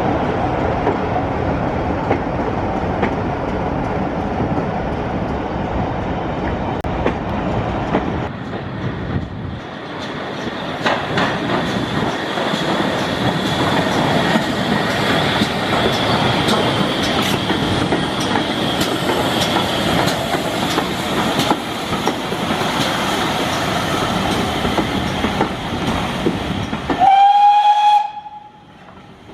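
A heritage railway train running, its wheels clattering over the rails in a steady rumble. Near the end a single short, high-pitched whistle blast sounds.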